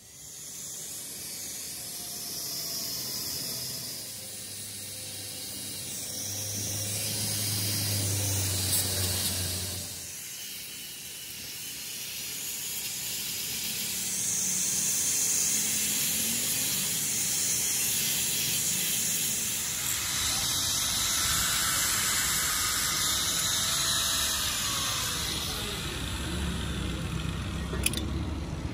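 Handheld angle grinder with an abrasive disc grinding rust and old paint off a steel part of a hydraulic jack: a steady, high grinding hiss whose level shifts as the disc is worked over the metal.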